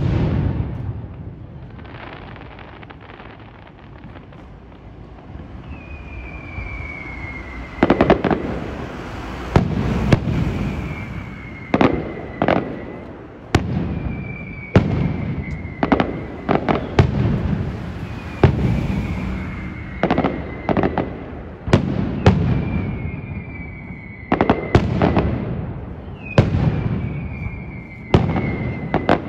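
Aerial firework shells bursting: one big bang at the start, then from about eight seconds in a rapid barrage of loud bangs, one every second or two, each with a rumbling tail. A short falling whistle comes again and again, every few seconds.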